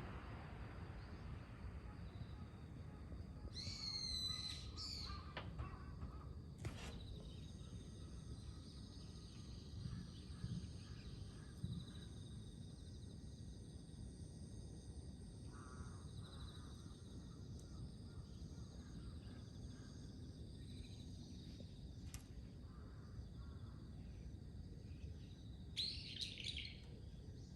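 Starlings calling: a short run of whistled, gliding calls a few seconds in, scattered faint chatter, and a louder burst of calls near the end, over a steady high-pitched background.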